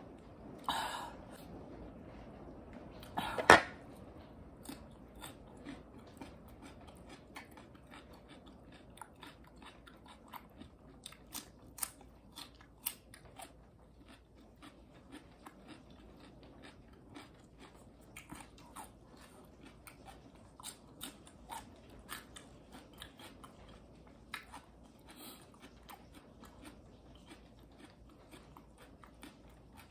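Close-miked chewing of a salad of raw vegetables and noodles: irregular crunches and small clicks from the mouth, with one loud crunch about three and a half seconds in.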